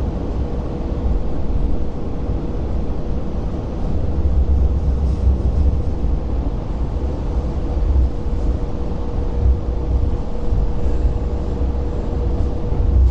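Hong Kong LRT Phase 5 light rail car running, heard from inside the passenger cabin. A steady low rumble from the wheels on the rails rises and falls a little, with a constant hum held on one pitch underneath.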